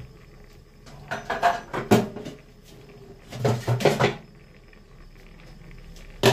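Kitchen handling clatter: two short bouts of knocks and rattles, about a second in and again past the midpoint, then one sharp click at the end.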